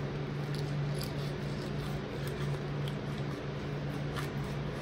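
Fillet knife cutting and scraping through a porgy fillet on a glass cutting board, separating the flesh from the skin, with faint small clicks. Under it runs a steady low hum.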